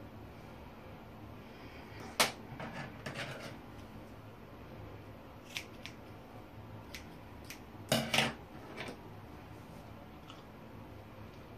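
Small hair scissors snipping the ends of straightened hair, a light dusting trim: scattered sharp snips, in two busier clusters about two seconds in and about eight seconds in.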